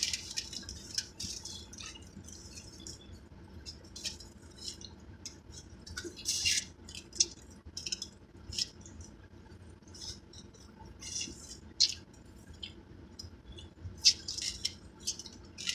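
Close-up mouth sounds of eating Cajun corn: chewing with lip smacks, heard as a string of short, sharp, irregular wet clicks and crackles.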